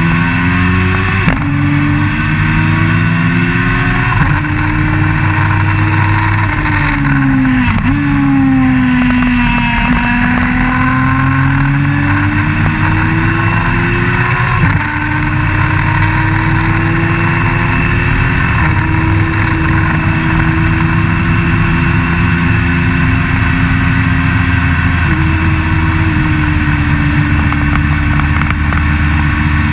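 Open-wheel race car engine heard from onboard at full racing pace, the note climbing through the gears with quick upshifts about a second in and about four seconds in. It falls away as the car slows for a corner around eight seconds, then pulls hard again with further upshifts near fifteen, eighteen and twenty-five seconds.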